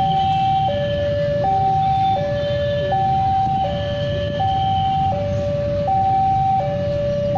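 Electronic two-tone level-crossing alarm sounding, a higher and a lower tone taking turns about every 0.7 s, the warning that a train is approaching the crossing. A steady low rumble runs underneath.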